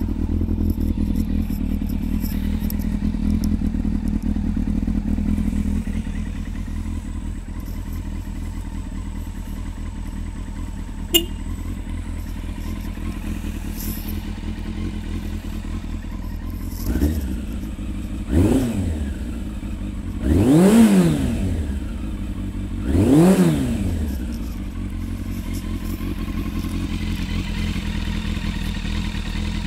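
A 1999 Yamaha FZS600 Fazer's 600 cc inline-four idling through an aftermarket Laser silencer. In the second half it is revved four times, the pitch rising and falling each time, the third rev the longest and loudest. A single sharp click sounds about a third of the way in.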